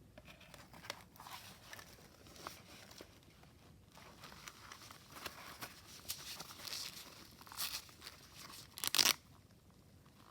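Rustling and light clicks as a fabric watercolor pouch and small stationery items are handled and packed, with one brief louder noise about nine seconds in.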